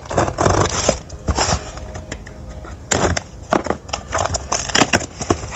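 Utility knife slitting the packing tape on a small cardboard box, then the cardboard flaps pulled open by hand, in a run of irregular scratchy, crackling strokes.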